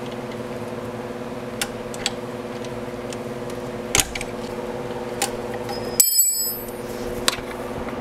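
Metal tools clinking while the starter generator belt of a gas EZGO TXT golf cart is being tightened: a few sharp clicks. About six seconds in, a dropped tool clangs and rings briefly. A steady low hum runs underneath.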